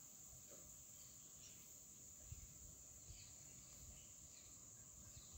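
Near silence, with a faint, steady high-pitched insect chorus that holds without change.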